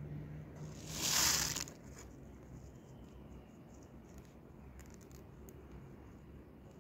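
A brief rustle of handled paper about a second in, then faint scattered ticks and rustles of fingers working in damp potting mix.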